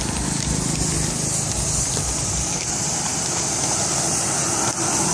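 Street traffic: a small motorbike's engine passing close by, its hum fading after a few seconds, then a pickup truck driving past, over a steady high hiss.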